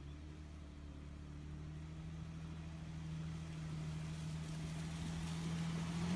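Infiniti FX35's 3.5-litre V6 engine running at a steady low pitch as the SUV approaches, growing gradually louder.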